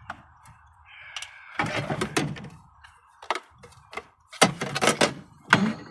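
Knocks and clattering of metal parts being pried and worked by hand on a POS terminal's stubborn component. It comes in several sharp bursts, starting about a second and a half in and again near the end.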